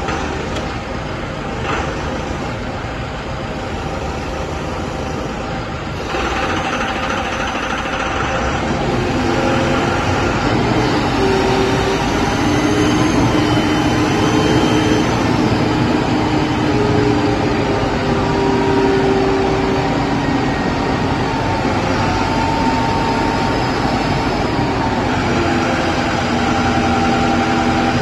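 A 10-ton forklift's engine running, louder from about six seconds in, with a hydraulic whine that steps up and down in pitch as the integral rotator's fork positioner and sideshift move the forks.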